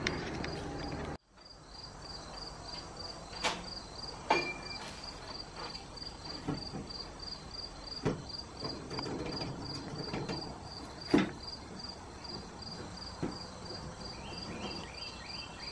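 An insect chirping steadily, a rapid even pulse of about three chirps a second, with a few scattered knocks from work on the house.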